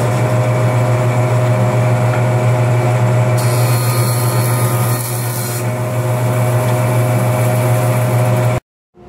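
Woodworking jointer running with a steady low motor hum. About three and a half seconds in, a hardwood board is pushed across the spinning cutterhead, adding about two seconds of cutting hiss as its edge is planed flush. The sound cuts off abruptly near the end.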